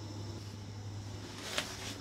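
Blue plastic film wrapped around a cleaver blade crinkles briefly about one and a half seconds in as the knife is handled, over a steady low hum.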